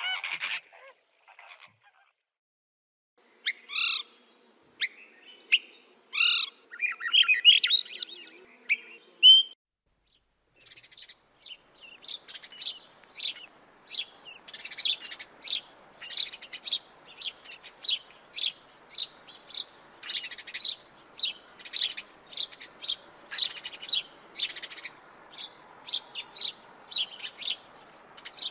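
Birds calling in two stretches: first a few loud, clear calls and a rising trill, then after a short break a long run of short, high chirps, about two a second, over faint background noise.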